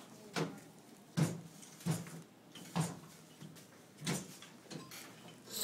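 A series of short, irregular knocks and bumps, roughly one a second.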